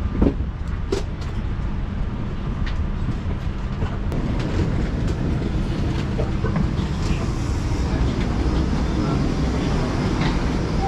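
Steady low rumbling hum of a parked airliner's cabin and jet bridge as passengers walk off, with a knock just after the start and a few sharp clicks.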